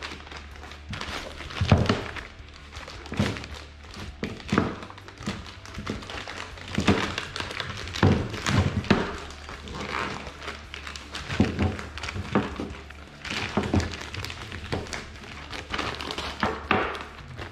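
Plastic postal satchel being handled and pulled open, with irregular crinkling and several dull thuds of the parcel inside knocking on the tabletop.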